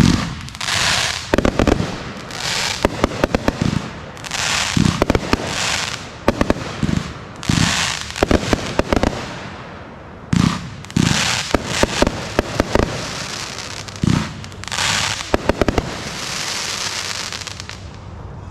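Mag Value 'Sons of Thunder' 25-shot 500-gram fan cake firing: a rapid string of shots, each sharp launch thump followed by a hissing, crackling break from the crackle and lace effects.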